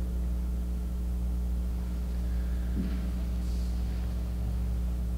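Steady electrical mains hum with its even overtones, and no voice over it; a faint brief stir about three seconds in.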